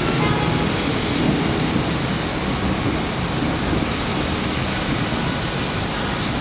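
Steady roar of city traffic, a dense even rumble with no distinct bangs.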